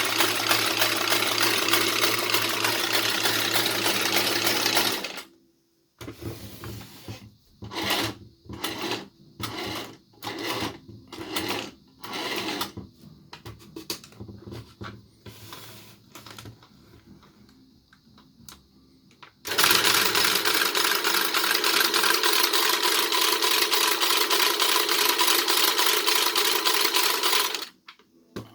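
Singer toy sewing machine running steadily, then stopping about five seconds in. After a pause it makes a string of short separate bursts of a few stitches each, then runs steadily again from about twenty seconds in until it stops just before the end.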